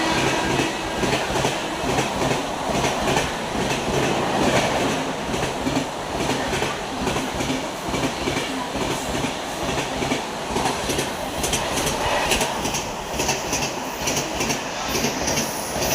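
LHB coaches of the Rajdhani Express passing at full speed, their wheels clattering in a fast rhythm over the rail joints. A horn note dies away just after the start, and the clatter turns sharper and higher in the last few seconds.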